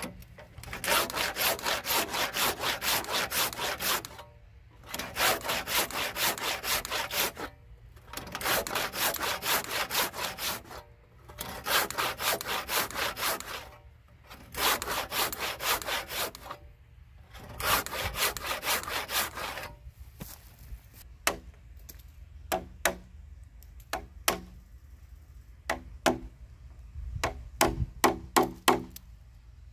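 Large handsaw cross-cutting a 12x12 cm pine/spruce timber beam in quick back-and-forth strokes, about three a second, in several runs with short pauses between them. In the last third the sawing stops and a scattering of sharp taps and knocks on the wood follows.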